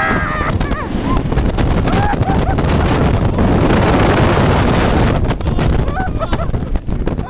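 Loud wind rushing over the microphone of a camera riding a snow tube downhill, with snow spray hissing against it; the rush is heaviest midway. A few brief vocal sounds near the start and near the end.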